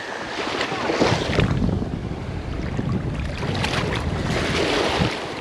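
Wind buffeting the microphone, with ocean surf washing on the beach.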